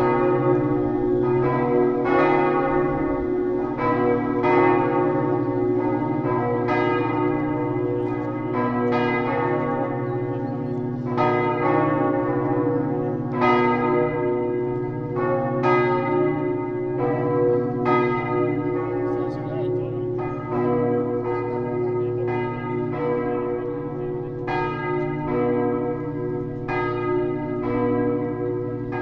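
Several large church bells swinging together in a full peal, ringing to call the faithful to Mass. Their strikes come roughly once a second and overlap, over a steady hum of the bells' ringing.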